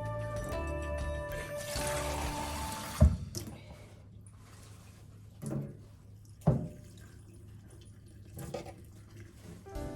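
Background music, then a tap running into a kitchen sink, with a few sharp knocks of things being handled in it, the loudest about three seconds in.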